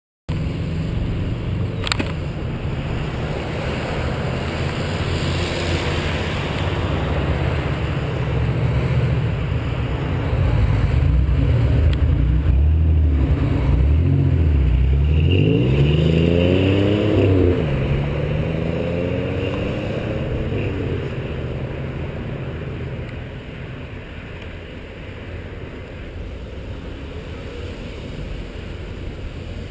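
Road traffic rumble and wind rushing over a bicycle-mounted camera's microphone while riding in congested traffic. About fifteen seconds in, a nearby car's engine revs up, rising in pitch as it accelerates; the rumble eases toward the end.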